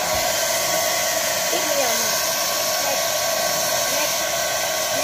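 Handheld electric hair dryer running steadily: a constant rushing blow of air with a steady hum underneath.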